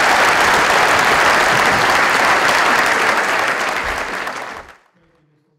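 Audience applauding, a dense clatter of many hands clapping that fades and stops abruptly near the end.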